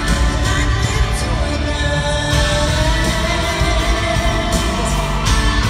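Live country-pop band playing loud in an arena, with a woman singing and heavy bass, heard from the audience. A long held note carries through the middle.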